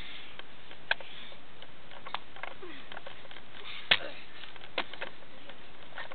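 Handling noise from a handheld camera: a few sharp clicks and knocks over a steady hiss, the loudest about four seconds in.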